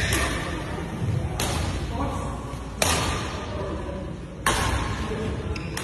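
Badminton rackets striking the shuttlecock in a rally: four sharp hits, about a second and a half apart, each fading quickly.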